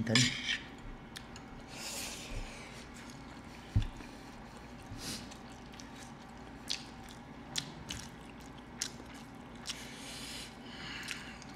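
Eating sounds: quiet chewing and mouth noises with scattered light clicks of metal chopsticks against plates, and a single thump about four seconds in.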